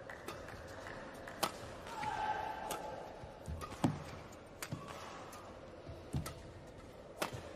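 Badminton play on an indoor court: three sharp smacks a couple of seconds apart, with a few dull low thuds between them.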